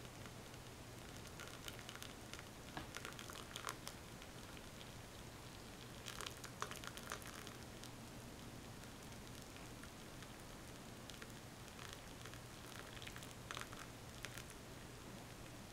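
Water poured in a thin stream into the glass tea infuser of a glass teapot, onto loose tea leaves: a faint trickle with scattered crackles and small pops that come in clusters a few seconds apart.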